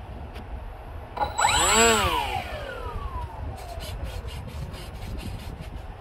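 The FX-61 Phantom's brushless electric motor and propeller briefly run up during a pre-flight throttle check. It is a whine that rises to a peak about two seconds in, then falls away as the propeller spins down.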